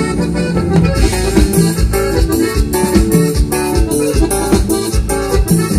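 Latin dance band music: an instrumental break with a keyboard melody over a steady bass and drum beat.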